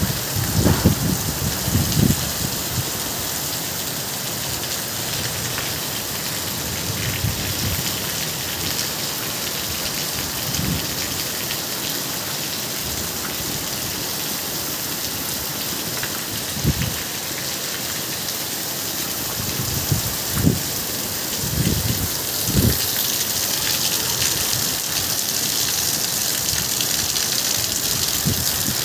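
Heavy downpour: a steady, dense hiss of rain falling, with a few brief low thumps scattered through the second half.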